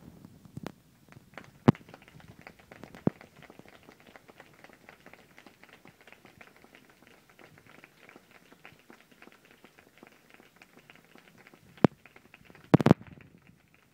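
Audience applauding: a dense patter of many hands clapping, with a few louder claps close to the microphone, dying away near the end.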